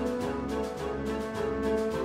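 Background music: held melody notes over a quick, steady beat.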